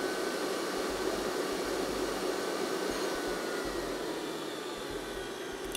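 Electric stand mixer running steadily, whipping soft butter into egg-white meringue to make meringue buttercream.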